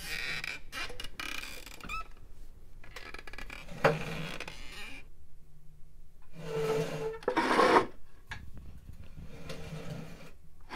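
Irregular bursts of scraping, rasping noise, some carrying a steady low hum, with a sharp click about four seconds in and the loudest burst a little after halfway.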